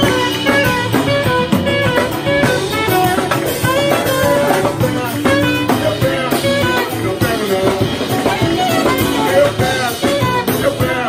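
Live samba rock band playing an instrumental passage: acoustic guitar over conga drums and a steady beat, with a melody of short stepping notes.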